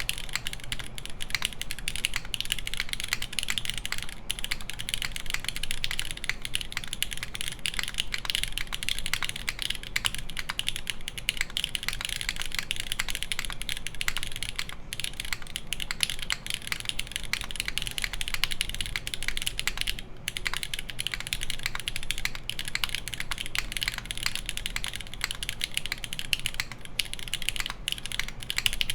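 Continuous fast typing on a custom mechanical keyboard with lubed Cherry MX Black linear switches, an aluminium plate and GMK keycaps: dense, even key clacks with brief pauses in the flow.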